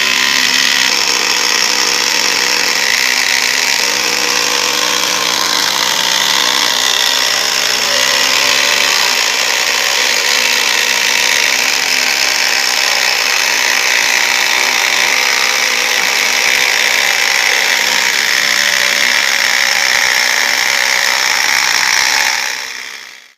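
A homemade chainsaw running steadily with a high motor whine and harsh noise. It starts abruptly and fades out near the end.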